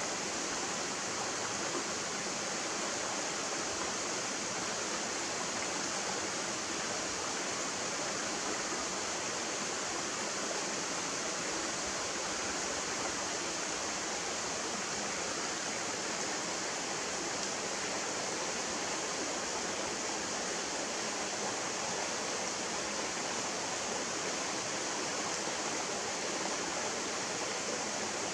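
Shallow stream running over rocks in a narrow rock gorge: a steady, even rushing with a bright hiss and no breaks.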